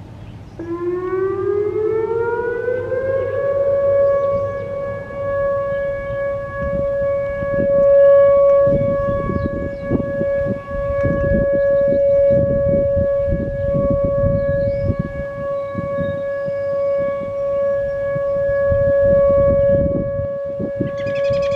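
Outdoor warning siren sounding its steady alert tone. It rises in pitch over about three seconds, then holds one steady tone.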